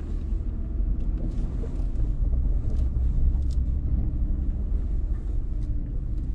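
Nissan Frontier Pro-4X pickup crawling slowly over a rough dirt track, heard from inside the cab. A steady low rumble of engine and drivetrain, with faint scattered light ticks and clicks from the truck and trail.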